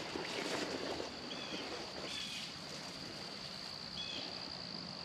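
Pond-side ambience: a steady high-pitched insect drone, with three short bird chirps spread through it.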